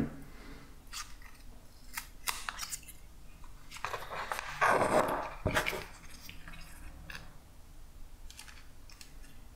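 Small clicks and crackles of a smartphone being handled and pried apart as its glued screen is pulled off the plastic mid frame. A longer, louder scrape comes a little past the middle, then a short knock.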